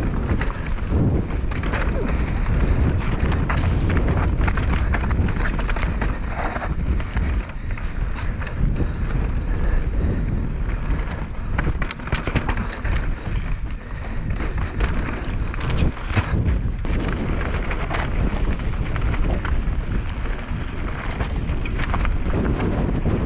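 Wind buffeting the action camera's microphone during a fast mountain-bike descent, over the rush of tyres on dirt and gravel, with frequent clacks and rattles from the bike on rough ground.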